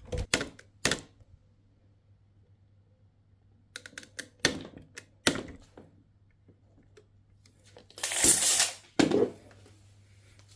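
Sharp clicks and knocks of hard tool parts being handled, in small clusters, with a scraping rasp lasting about a second near the end.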